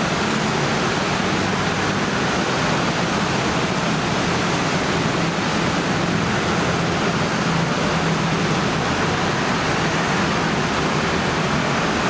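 Massed traffic of hundreds of small motor scooters streaming past together: a steady, unbroken wash of engine drone and tyre hiss on the wet road, with a low engine hum underneath.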